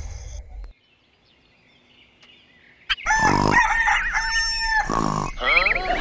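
A rooster crowing: a brief low rumble fades in the first second, then from about three seconds in comes a loud, long crow with a held note, followed by a second, wavering crow.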